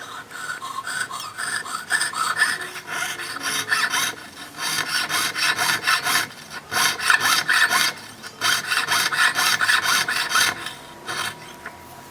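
Hand file rasping on the rim of an 18-karat gold ring, in quick even strokes, several a second. The strokes come in runs broken by short pauses.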